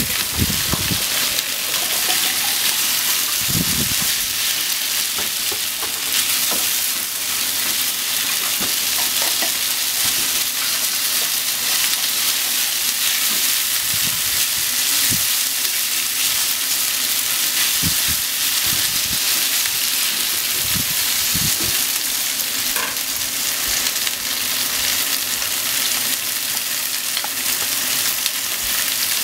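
Beef and sliced onion sizzling in a frying pan, a steady hiss, with now and then a short knock or scrape as chopsticks stir the food against the pan.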